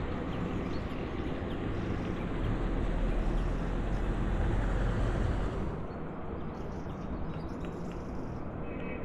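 A motor vehicle's engine running close by, a low steady rumble that drops away about six seconds in.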